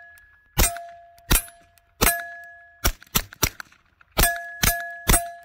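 Suppressed 9mm Glock 43X MOS pistol with a SilencerCo Omega 9K firing about nine 115-grain FMJ rounds at an uneven pace, some in quick succession. Most shots are followed by the ringing ding of a hit steel target.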